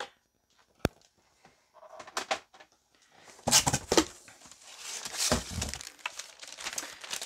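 Hard plastic graded-comic slabs being handled: a sharp click about a second in, then scraping and knocks as slabs are set down and picked up, with two heavier thumps in the middle.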